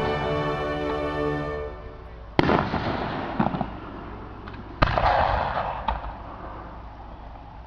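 Orchestral music that cuts off in the first two seconds, then two firework shells bursting about two and a half seconds apart, each a sharp bang followed by crackling.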